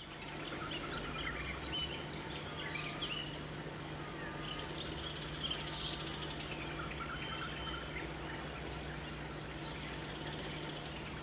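Forest ambience: many birds chirping and calling in short, overlapping phrases over a steady background hiss and a low hum.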